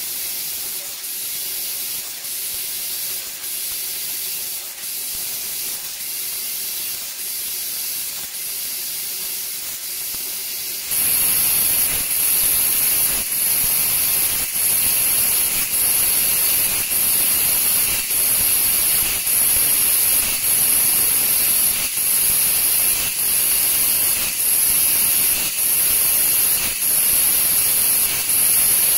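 Fiber laser cutting 1.2 mm copper sheet: a steady hiss of assist gas jetting from the cutting-head nozzle, dipping faintly about once a second. About eleven seconds in the hiss turns suddenly louder and brighter.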